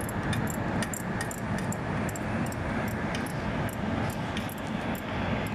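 Irregular light metallic clicks and clinks of hand tools working on a fitting, over a steady low machinery rumble.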